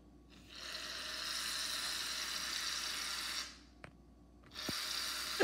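Aerosol can of foamy shaving cream spraying: a steady hiss lasting about three seconds, then after a short pause a second, shorter spray near the end.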